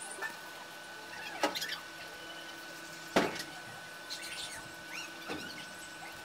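Felt-tip pen squeaking and scratching over cardboard in short colouring strokes, with a few taps, the sharpest about three seconds in. A faint steady high whine runs underneath.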